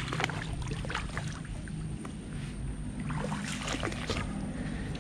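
Brief rustling and light splashing as water-spinach stems are handled in shallow pond water, in two clusters: one near the start and one about three seconds in. A steady low hum runs underneath.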